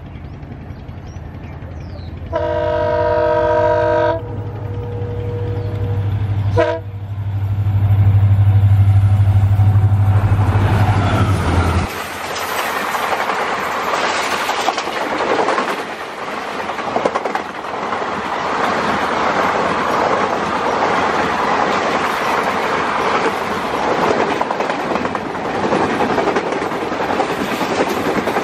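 An EMD two-stroke diesel locomotive sounds its multi-tone horn in one long blast and then a short one while its engine hum builds as it passes close by. The low hum cuts off suddenly about twelve seconds in, and the passenger coaches follow over the steel bridge with a steady clickety-clack of wheels on rail joints.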